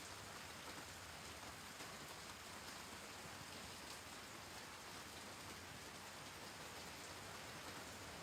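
Faint, steady hiss of falling water with a light patter.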